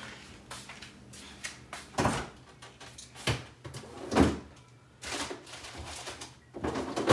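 Knocks and thumps of kitchen doors being opened and shut, a few sharp ones about two, three and four seconds in, the loudest about four seconds in, and another at the very end.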